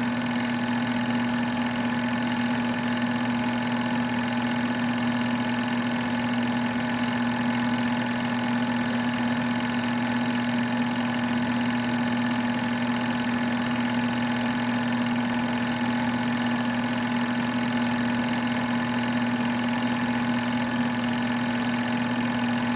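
Sears Tower home-movie projector running, its motor and film mechanism making a steady, unbroken whirring hum.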